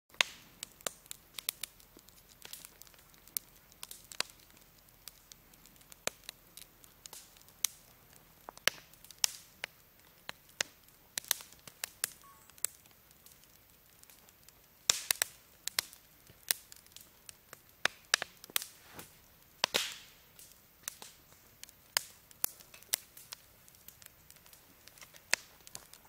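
Wood campfire crackling, with irregular sharp snaps and pops; a cluster of louder pops comes about fifteen seconds in and another near twenty seconds.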